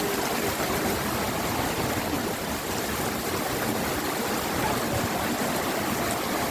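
Heavy rain pouring down in a tropical thunderstorm downpour, a steady, even rushing hiss with no let-up.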